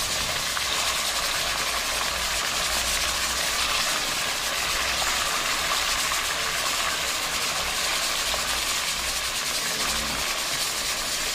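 Pieces of snook frying in hot oil in an aluminium pot: a steady sizzle with a faint low hum beneath.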